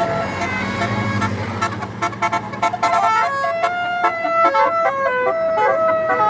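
Basuri telolet bus horn playing a tune of short held notes that step up and down in pitch. For the first second or so it plays over the low running of the bus engine, and a quick run of clicks comes about two seconds in.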